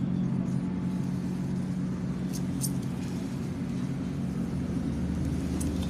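Steady low motor hum made of several fixed pitches, with a deeper hum joining about five seconds in.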